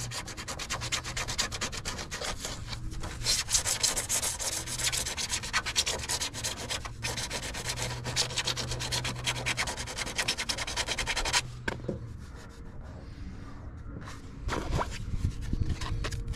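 An 80-grit sanding disc rubbed by hand over a fibreglass bumper in fast back-and-forth strokes, knocking down raised bits of the fibreglass. The sanding stops about eleven seconds in.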